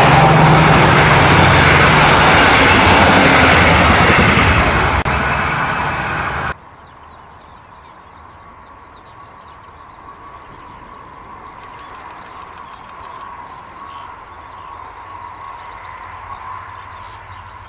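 Double-deck passenger coaches of a train hauled by a class 218 diesel locomotive rolling past close by, a loud rush of wheels on rail that cuts off abruptly about six and a half seconds in. After that, much quieter: a distant train's faint steady hum with birds chirping.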